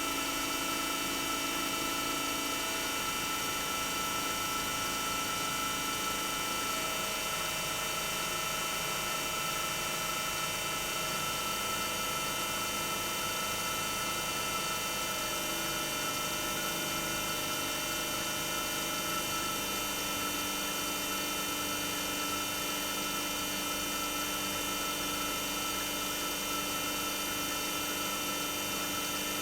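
Toshiba twin rotary inverter compressor (DA91A1F-42F) running steadily, a hum with several high steady whining tones. A few times the pitch of some tones steps to a new level as the inverter drive changes speed.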